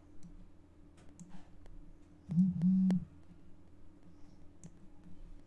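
Faint computer mouse clicks and scroll-wheel ticks. About two and a half seconds in comes a short, steady low hum lasting under a second, the loudest sound.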